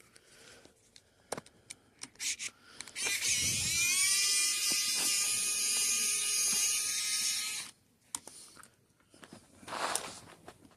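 Small electric motor, as in a handheld power tool, spinning up with a rising whine and running steadily for about five seconds before cutting off suddenly. A few light clicks come before it.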